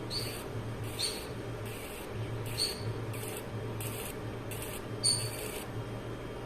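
Small laser engraver marking a bird's leg ring. A low steady hum with brief gaps runs under about eight short hissing passes, one every 0.7 seconds or so, some starting with a short high ping.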